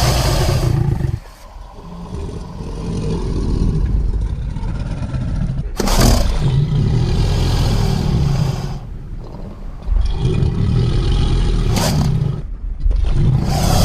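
Fictional monster-lizard vocalisations made by layering animal and movie-creature sound effects: a run of deep, rumbling growls and roars, one after another, with fresh loud roars starting about six, ten and thirteen seconds in.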